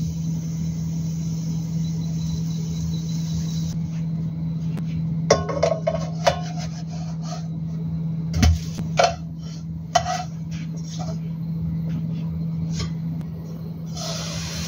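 Cooking utensils knocking and clinking against a nonstick frying pan as a pancake is flipped, a scattered run of sharp taps with the loudest knock about halfway through, over a steady low hum.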